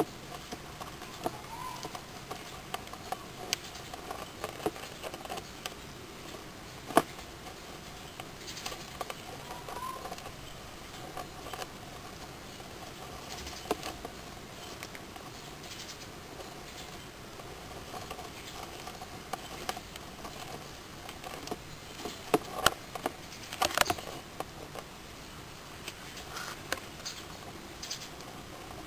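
Irregular light clicks and taps from two hermit crabs fighting: shells, claws and legs knocking together and scraping on gravel. There is one sharp knock about seven seconds in and a quick flurry of clicks about two-thirds of the way through.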